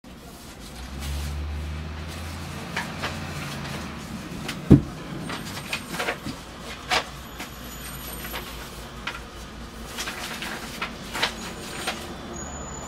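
Sheets of paper rustling and being handled, in short irregular crinkles and taps, with one loud thump a little before the middle. A low rumble sits under the first few seconds.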